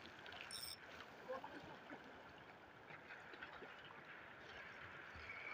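Near silence: faint, steady lapping of small waves on the water.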